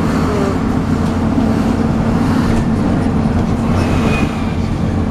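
MAN 18.240LF bus's diesel engine running under way, with the steady vacuum-cleaner-like whine known as 'hoovering', typical of its engine cooling fan, heard as a constant drone and held tone.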